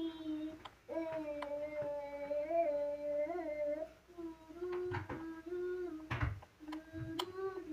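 A person humming a tune in long, wavering notes, with a few sharp clicks and a dull knock about six seconds in.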